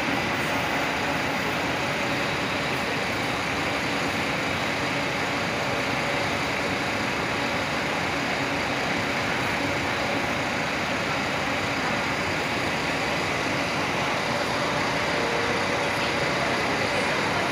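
Intercity coaches' diesel engines running at low speed as they idle and manoeuvre at a bus terminal, a steady drone with a constant high whine over it.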